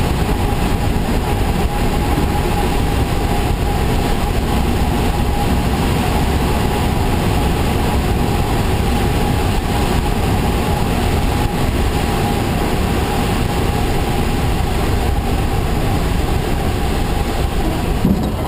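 Steady rush of air over an engineless glider's canopy and fuselage as it glides low on final approach. Near the end there is a short bump as the glider touches down on the dirt strip.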